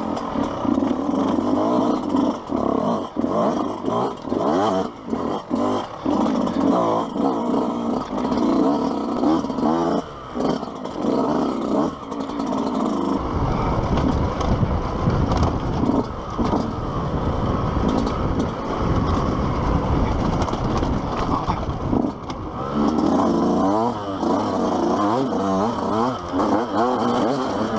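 Yamaha YZ125 single-cylinder two-stroke dirt bike engine revving up and down hard, the throttle chopped and reopened over and over as it is ridden over rough trail, heard through a helmet-mounted camera. About halfway through, a heavy low rumble joins under the engine and stays.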